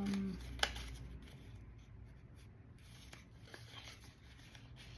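Rustling and light tapping from unpacking a box of rocks and crystals: a sharp click about half a second in, then faint scattered taps and rustles.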